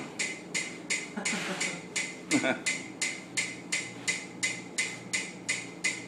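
Metronome clicking at a fast, steady tempo, about three clicks a second.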